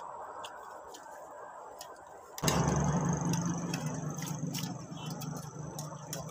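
A low, steady engine hum comes in abruptly about two and a half seconds in and carries on, with light clicks of spoons on plates scattered throughout.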